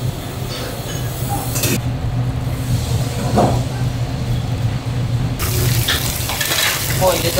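Restaurant kitchen work sounds: water running into a sink over a steady low hum, with a few short knocks.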